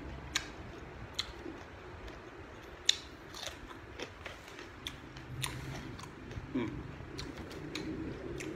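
A person chewing and biting raw yard-long beans, with sharp crisp crunches at irregular intervals, the loudest about three seconds in.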